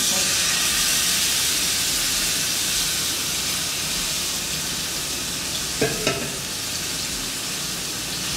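Whole lane snapper sizzling in hot olive oil and butter in a frying pan, a steady hiss that starts as the fish is laid in the pan. Two light clicks about six seconds in.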